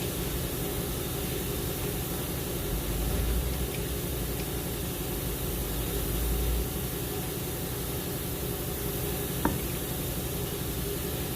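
Steady hissing background noise with a low hum, a low rumble swelling for a few seconds, and a single sharp click near the end.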